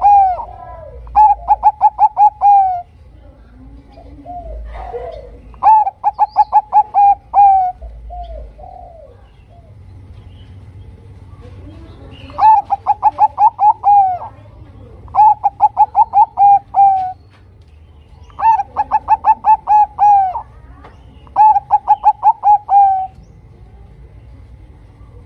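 Bangkok-strain zebra dove (perkutut) singing its song: phrases of rapid, evenly spaced staccato coos, each lasting one to two seconds and repeated about seven times with short pauses, with a longer pause near the middle.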